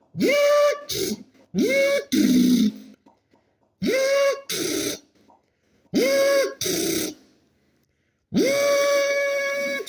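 A person making impact-wrench noises with their mouth: five buzzing bursts, each rising quickly in pitch and then holding steady, most ending in a short rush of breath noise. The last burst is the longest.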